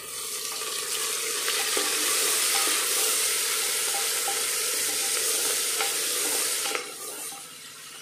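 Sliced onions and ginger sizzling in hot oil in an aluminium pressure cooker as they are stirred with a wooden spatula, with a few light knocks of the spatula on the pot. The sizzle builds over the first second or two and drops off abruptly near the end.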